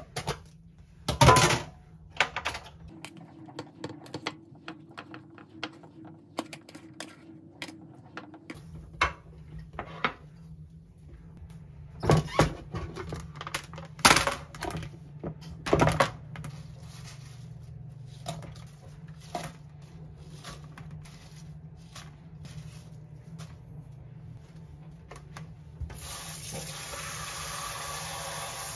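Plastic kitchenware handled on a countertop by a sink: a food container and salad spinner parts clack and knock as they are opened, set down and fitted together, with the sharpest knocks about a second in and again in a run around the middle. Near the end a kitchen tap starts running steadily into the sink.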